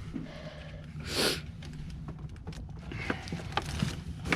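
Steady low hum of the van's water pump running, with a short hiss about a second in and a few light clicks and knocks of handling.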